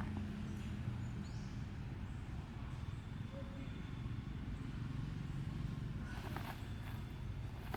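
Low steady rumble of a running engine, with a few faint clicks near the end.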